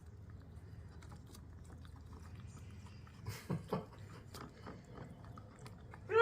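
Kittens lapping and chewing food: faint, quick wet clicks of small mouths, with a couple of brief louder sounds about three and a half seconds in.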